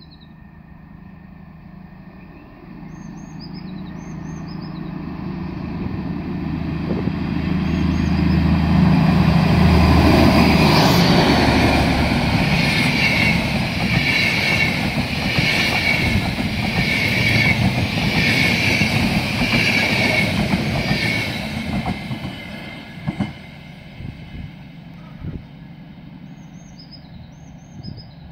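DB Class 218 diesel-hydraulic locomotive at full throttle accelerating past, its engine note building to a peak about ten seconds in. Then the intercity coaches roll by with a rhythmic clatter of wheels on the rails, about one beat a second, before fading with a few sharp knocks. Birds chirp faintly at the start and the end.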